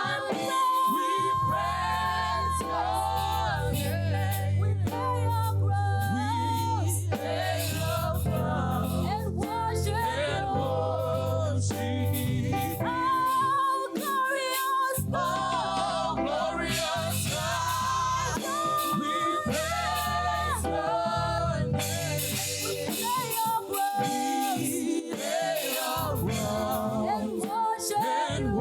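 Church choir singing a gospel praise song, with voices carrying the melody over a low bass accompaniment that drops out briefly twice.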